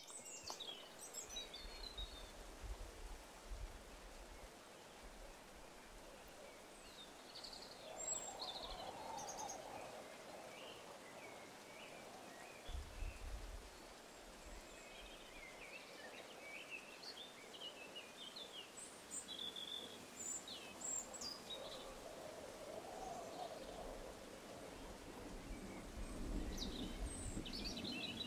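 Faint wild birdsong: scattered short chirps and trills from small birds, over a soft steady hiss of outdoor ambience with occasional low rumbles.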